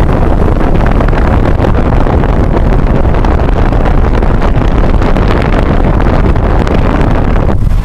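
Car driving slowly, its road and engine noise mixed with wind buffeting the microphone: a loud, steady rumble that thins out briefly near the end.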